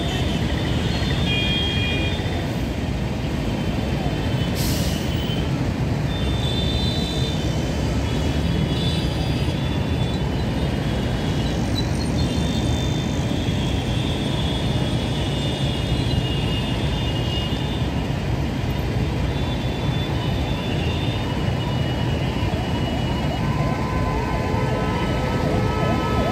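Road traffic at a busy junction: scooters, motorcycles and auto-rickshaws running and passing in a steady rumble, with short horn beeps scattered throughout. A wavering tone comes in during the last few seconds.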